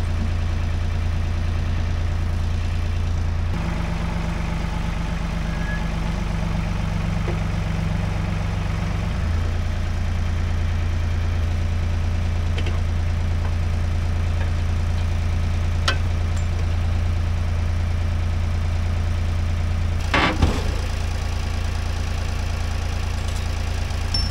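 Backhoe engine idling steadily, its note shifting for several seconds a few seconds in; a clank about twenty seconds in.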